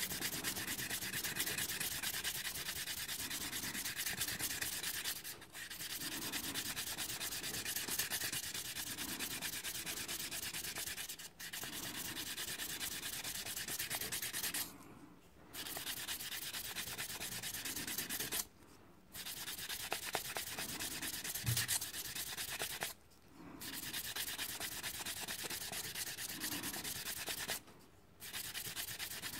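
Fine P800 wet-and-dry abrasive paper rubbed by hand around a steel brake caliper piston, a steady rasping with short pauses every few seconds. The piston is being polished smooth of built-up surface debris so it will not damage the new seals.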